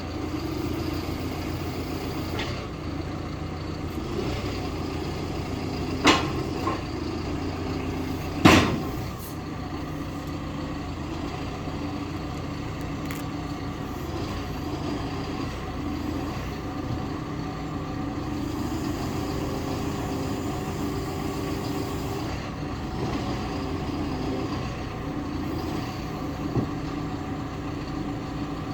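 Hidromek HMK 102B Supra backhoe loader's diesel engine running steadily, with two sharp knocks a couple of seconds apart early on and a lighter one near the end.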